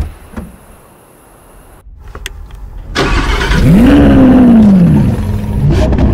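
A sharp thump right at the start, then a Lamborghini Aventador S's 6.5-litre V12 starting about three seconds in. It catches with a rev that climbs and falls back, then settles to a steady idle.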